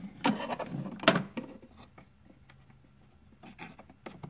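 Handling noise: a hand rubbing and scraping against the plywood compartment and its wiring, several short scrapes in the first second and a half, then quieter, with a few small knocks near the end.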